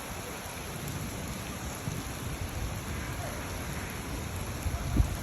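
Steady rain falling, with a dull thump near the end.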